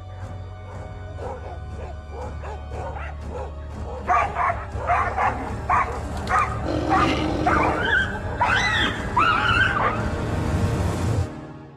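Dogs barking over and over, sounding the alarm at a tiger. The barks grow loud about four seconds in, and high yelps rise and fall near the end, all over a low music drone. The sound cuts off suddenly at the end.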